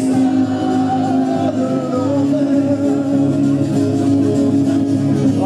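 Live band music: a singer over guitar and sustained backing notes, playing loud and steady.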